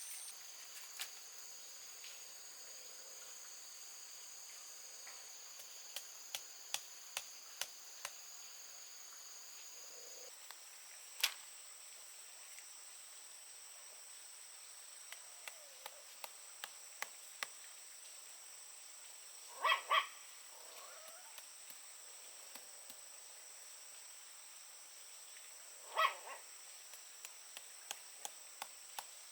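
Steady high-pitched insect drone, with runs of light taps about two a second. A short, loud animal call sounds twice in quick succession about two-thirds of the way in, and once more near the end.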